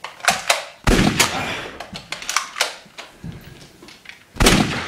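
Sharp clicks of a Nerf blaster being handled, with two loud shot-like bangs, one about a second in and one near the end.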